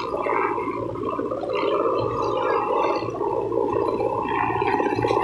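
Helicopter rotor running, a fast, even chop that holds steady throughout.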